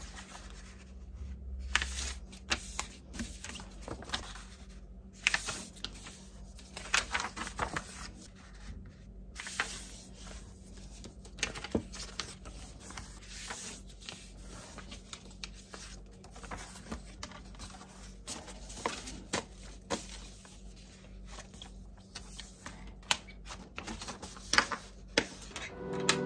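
Sheets of printed paper being handled on a desk: rustling, crinkling and many light taps and clicks as the pages are lifted, turned and smoothed flat, over a faint steady hum.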